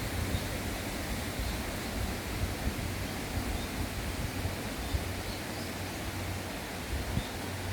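Steady outdoor rushing noise with an unsteady low rumble, and a few faint high chirps.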